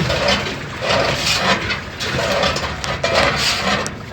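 General Electric top-load washer agitating, its tub scraping against the bottom sheet-metal panel in a rhythmic scrape that repeats a little faster than once a second. The tub has sagged low and hits the floor panel, which was bent up when the machine was lifted with a dolly; more load makes it hit harder.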